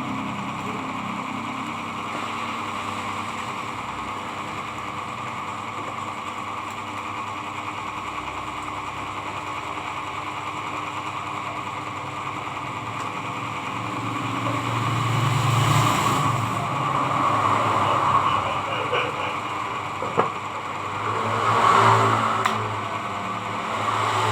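A small motor running steadily, growing louder for a few seconds about two-thirds of the way in and again near the end, with one sharp click in between.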